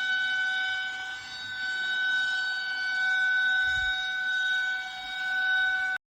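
Emergency warning siren sounding one steady, unchanging pitch with several overtones, its loudness swelling and fading slowly. It cuts off abruptly right at the end.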